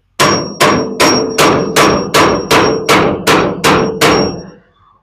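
Hammer striking a hand impact driver on a seized, rusty door-latch bolt, eleven steady blows about two and a half a second with a ringing metallic clang after each, to shock the bolt loose. The blows stop about half a second before the end.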